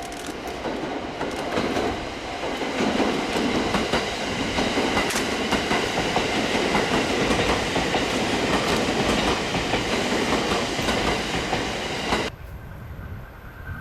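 E231 series electric commuter train running on the track, its wheels clattering over rail joints. The sound cuts off suddenly near the end, leaving a quieter steady tone.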